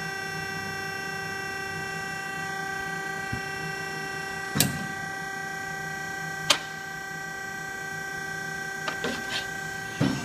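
Scotchman DO 120/200-24M hydraulic ironworker running with a steady pitched hum from its hydraulic pump. The punch strikes through a steel flat bar with two sharp bangs about two seconds apart. A few light metal clicks and a clank of the bar follow near the end.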